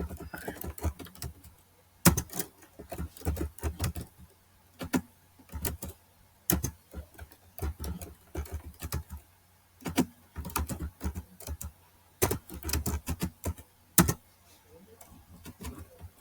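Typing on a computer keyboard: quick runs of key clicks broken by short pauses, thinning out near the end.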